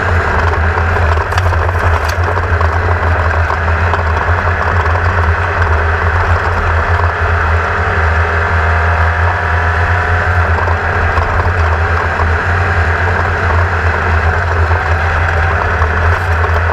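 Class 1600 off-road race buggy running flat out, with its air-cooled Volkswagen engine making a steady low drone. Heavy rough wind and chassis noise sits over it, and the engine pitch shifts slightly near the middle.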